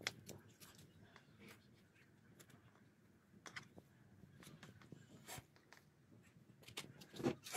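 Faint small clicks and rustles of hands fitting a plastic drip emitter onto thin drip tubing and handling the stakes in the pot, with one louder knock near the end.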